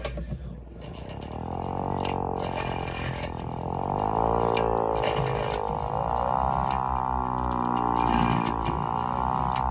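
VXS-1200M hand-crank tornado siren winding up: its wail rises in pitch for about three seconds, then holds and wavers up and down as the crank is turned. Short clicks from the crank mechanism sound over it.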